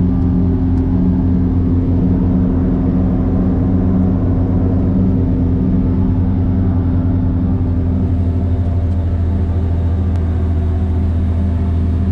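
Steady engine drone and road noise of a vehicle cruising on a paved road, heard from inside the cab.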